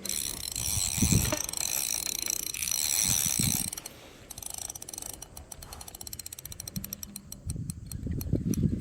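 Fishing reel ratcheting under the pull of a big hooked carp: a fast, continuous clicking buzz for about the first four seconds, then slower, evenly spaced clicks. A few low handling thumps come and go.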